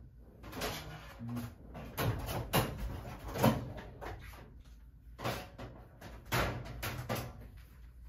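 Objects being rummaged through and handled, likely while fetching another laptop screen: a string of irregular knocks and clacks with rustling between them, the loudest about three and a half seconds in.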